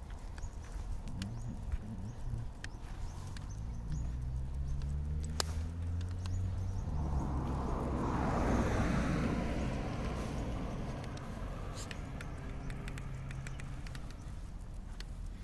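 A car drives past on the road: its engine note rises as it approaches, and tyre noise swells to a peak a little past halfway before fading away. Light ticking steps on the pavement run underneath.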